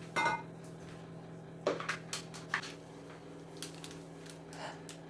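Light kitchen clatter: a few separate knocks and scrapes of utensils against a mixing bowl and baking tin, over a steady low hum.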